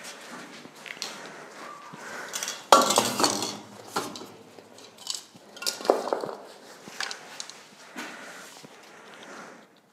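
Metal spray paint cans clinking and knocking against each other as they are handled, the loudest cluster of clinks about three seconds in, with a few more single knocks later.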